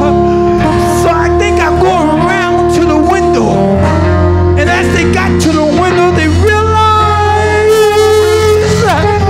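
Live church band music led by guitar over a steady bass, with a man's voice singing along in long, wavering notes.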